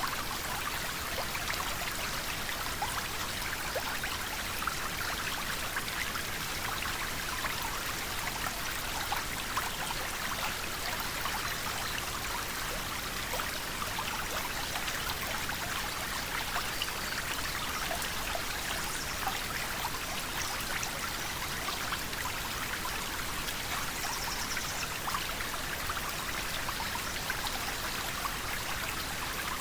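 River water flowing in a steady, even rush, with many small splashing drips and ticks scattered through it.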